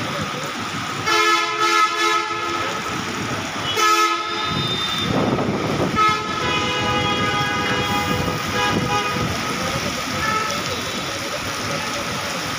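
Steady hiss of heavy rain, with vehicle horns honking through it: a honk about a second in, a short one around four seconds, and a longer spell of honking from about six to nine seconds.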